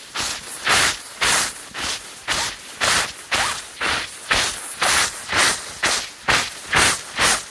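Vocal imitation of a steam train chugging along: rhythmic hissing chuffs made with the mouth, about two a second.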